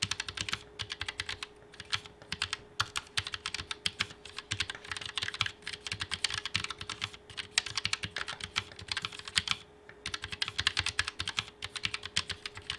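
Continuous typing on a Keychron K1 TKL low-profile mechanical keyboard with red low-profile linear switches: a rapid, uneven patter of key clicks, several per second, with a few short pauses.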